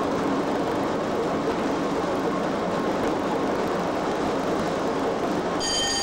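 Cab noise of a Class 87 25 kV AC electric locomotive running at speed: a steady rumble of wheels on rail and traction equipment. Near the end, a brief high ringing tone sounds over it.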